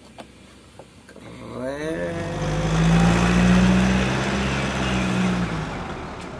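Light dump truck's diesel engine pulling away and driving past: the pitch rises as it accelerates, then holds steady, loudest in the middle and fading near the end. A few faint clicks come before it.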